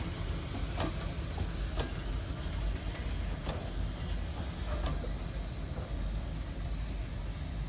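GWR passenger coaches rolling slowly past: a steady low rumble of wheels on rail, with four or five sharp clicks from the running gear spaced about a second apart.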